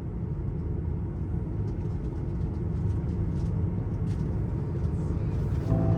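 Steady low rumble of an Airbus A330 airliner cabin before takeoff, with a few faint clicks. Soft music comes in near the end.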